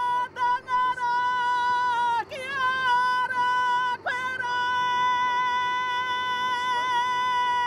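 A woman singing a Māori greeting chant in long held high notes, a few short breaks early on and a last note held for nearly four seconds.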